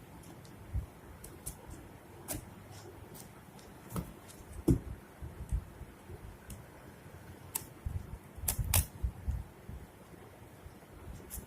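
A delivery package being handled and opened by hand: scattered sharp clicks, taps and short rustles of packaging, with a louder cluster of knocks about eight to nine seconds in.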